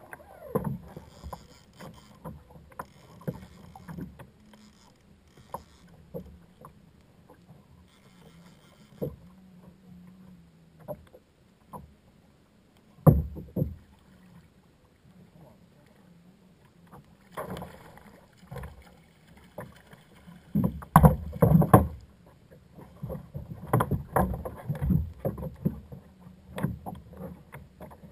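Knocks, clicks and rubbing of a fishing rod, reel and gear being handled on a plastic sit-on-top kayak, carried through the hull to a boat-mounted camera. One heavy thud comes about halfway through, and the knocks come thick and fast over the last several seconds.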